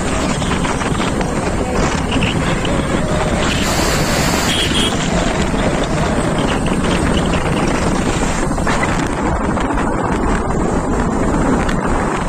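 Steady wind buffeting the microphone while riding along a road, mixed with the noise of the moving vehicle.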